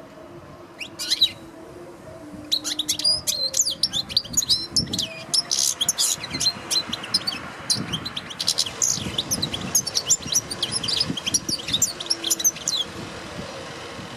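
European goldfinch singing a rapid, twittering song of quick high chirps and trills. A short burst comes about a second in, then the song runs almost without a break and stops shortly before the end.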